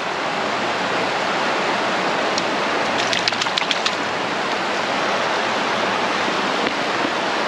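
Shallow creek water running: a steady rushing hiss, with a brief run of high clicks about three seconds in.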